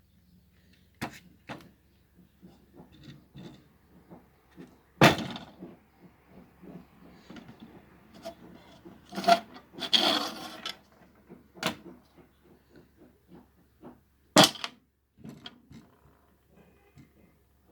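Handling noise from working on a fixture: irregular clicks, rubbing and scraping, with several sharp knocks (about five, nine, twelve and fourteen seconds in) and a rough scraping stretch around ten seconds in.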